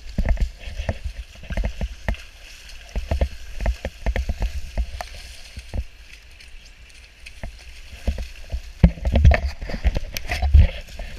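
Wading through a shallow, fast river: water sloshing and splashing around the legs, with irregular heavy thumps of a handheld camera being jostled, strongest near the end, over the steady rush of the current.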